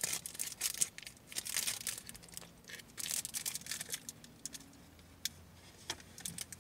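Clear plastic snack wrapper crinkling in irregular bursts as it is handled and pulled open by hand, followed by a few single sharp clicks near the end.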